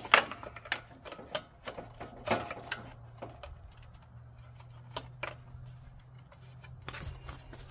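Irregular clicks and knocks of a hard plastic bagger chute support being pressed and worked onto the mounting frame of a Cub Cadet XT1 lawn tractor, the sharpest click right at the start.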